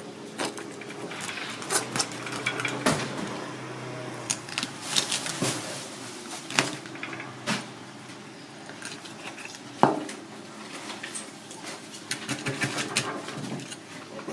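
Kitchen knife cutting and scraping a lionfish on a cutting board: irregular scrapes and clicks as the blade works through scales, gills and bone, with one sharp knock about two-thirds through.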